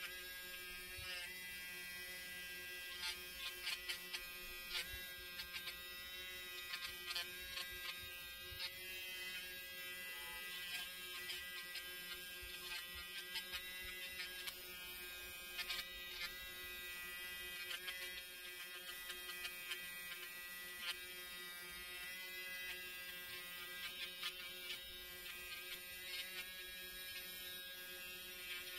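Budget pen-style electric nail drill running with a steady high motor whine, its fine bit working the cuticles and the hard skin at the side of the nail, with irregular light ticks over the whine.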